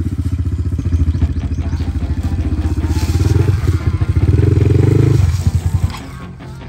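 Dirt bike engine running close by, with a fast pulsing beat. It grows louder from about three seconds in, then drops off sharply a little after five seconds to a quieter, uneven idle.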